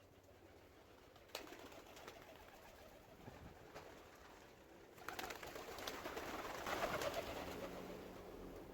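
Pigeons cooing quietly, with a sharp click about a second in, then a louder rustling noise with sharp clicks from about five seconds in.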